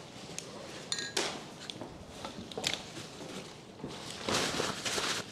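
Paper towel rubbing over mirror glass in several scrubbing strokes, the longest near the end, wiping off excess moulding glue.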